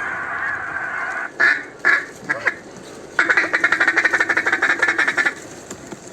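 Duck calling in mallard-style quacks. A held call is followed by three loud, short quacks, then about two seconds of fast, rapid-fire quacking that stops abruptly, like a feeding chuckle on a hunter's duck call.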